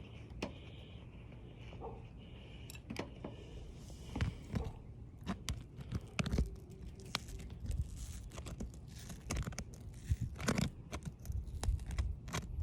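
Asphalt roof shingle being pried loose from its sealant strip: irregular crackling, scraping and tearing as the seal breaks and the shingle starts to tear. It gets busier from about four seconds in.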